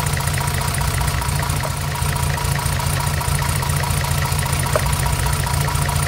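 1975 Mercedes 280 SL's M110 twin-cam straight-six idling steadily with one cylinder's spark plug lead pulled off. The engine note and revs do not drop, the sign that this cylinder is the one misfiring.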